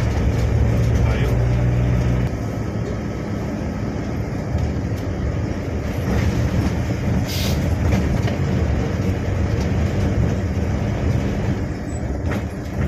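Steady rumble of a road vehicle driving at speed, tyre and engine noise, with a brief hiss about seven seconds in.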